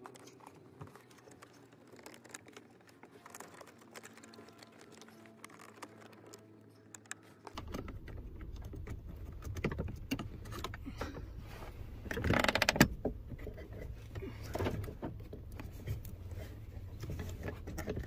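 Small clicks, taps and rustles of hands handling plastic under-dash trim panels and wiring in a pickup's footwell, with a louder jingling rattle about two-thirds of the way through. A low steady hum comes in partway.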